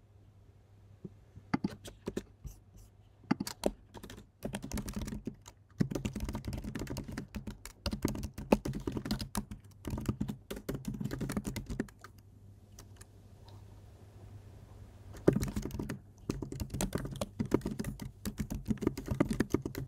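Typing on a computer keyboard: quick runs of key clicks, with a pause of a few seconds about two thirds of the way through before the typing starts again.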